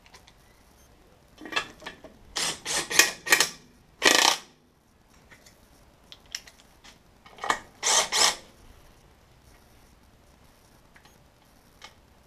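A ratchet on a long extension running bellhousing bolts into a transmission case, in short ratcheting runs: a cluster of runs early on, then a pair more about eight seconds in.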